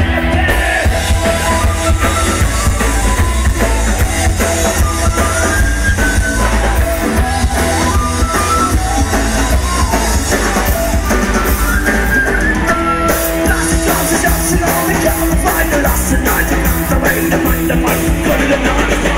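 A rock band playing live and loud: drum kit, electric guitars and bass under a singer, with a steady drum beat. Heard from in the crowd, with a heavy bass.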